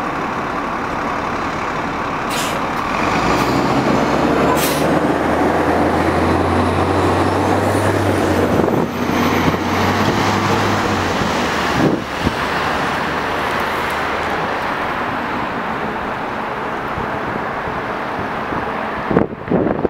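Van Hool A330 hydrogen fuel-cell bus moving off and passing close by, with a low electric drive hum instead of a diesel engine note. Two short air hisses from its brakes come a few seconds in. The hum fades after about eleven seconds, leaving street traffic noise, and wind buffets the microphone at the end.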